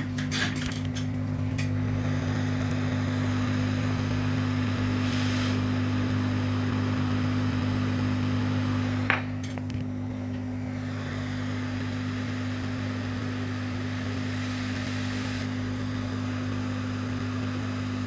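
Hot air rework station blowing a steady stream of hot air over a chip on a laptop motherboard to melt its solder, a steady rushing sound with a low hum. A few light clicks come in the first second, and one sharp click about nine seconds in, after which the airflow is a little quieter.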